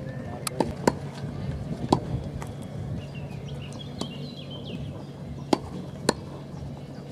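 Tennis rackets striking the ball in a practice rally: about seven sharp pocks at uneven intervals, the loudest about a second in, about two seconds in, and twice near the end.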